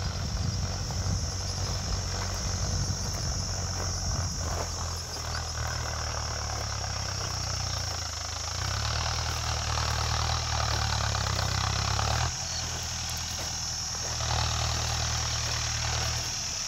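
Mahindra Arjun Novo 605 DI MS tractor's 50 HP four-cylinder diesel engine running steadily while pulling a bakhar (blade harrow) through dry soil. The engine is not working hard, and its note shifts several times as the tractor moves across the field. A steady high insect chirr carries on behind it.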